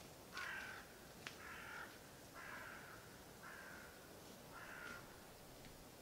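A crow-family bird calling five times, about once a second, faint in the forest.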